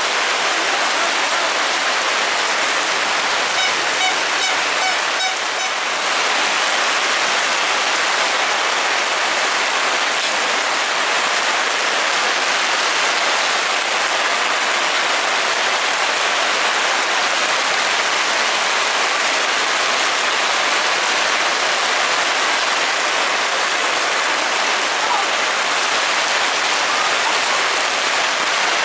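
Steady rain falling on tarpaulin stall canopies and wet paving: a dense, even hiss.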